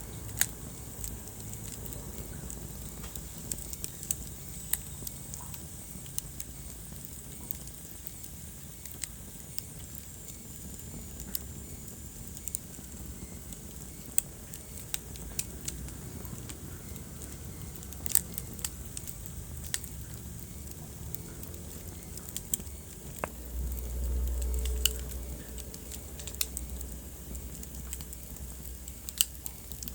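Wood fire crackling in a fireplace: irregular sharp pops and snaps over a low steady rumble of flames, which swells briefly about three-quarters of the way through.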